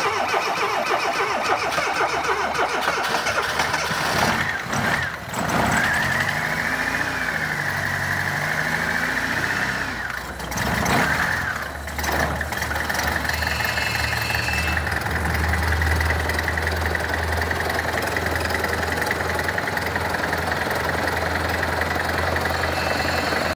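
Fiat Uno 60S 1.1-litre four-cylinder engine cranked by its starter on a jump-start, catching about five seconds in, revving up and down, faltering again near the middle, then settling into a steady idle. It runs rough on three cylinders: the second cylinder has no compression from a burnt valve, so the engine misfires.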